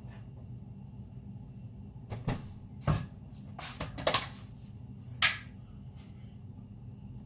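A handful of irregular knocks and clatters of kitchen things being handled, the loudest about three, four and five seconds in, over a low steady hum.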